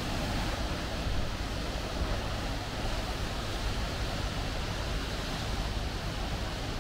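Steady wash of sea surf, with a low wind rumble on the microphone.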